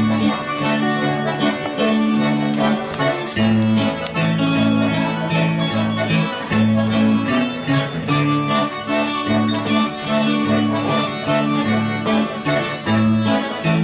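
Live band playing an upbeat dance tune, led by an accordion with electric guitar, over a steady, evenly repeating bass line.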